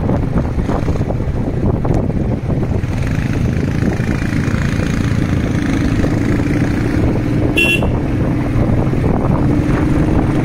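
Motorcycle engine running steadily under way, with road and wind noise on the microphone. A vehicle horn gives one short beep about seven and a half seconds in.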